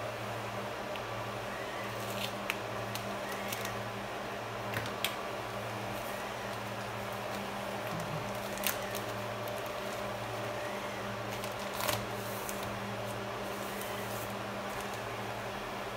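Scattered small clicks and light plastic rustling from a laptop LCD panel in its protective plastic being handled, over a steady low hum. The sharpest click comes about twelve seconds in.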